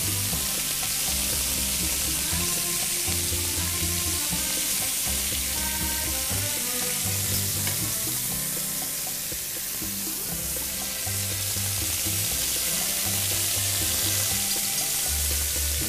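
Chicken, beef and vegetable skewers and beef medallions sizzling steadily in olive oil on a hot flat grill plate. Background music plays underneath.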